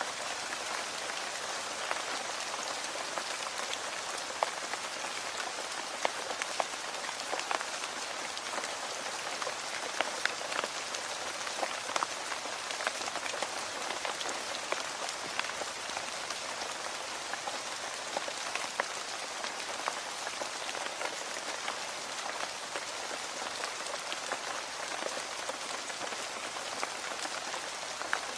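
Steady rain falling on a surface, an even hiss with many separate drop ticks and the odd louder drop.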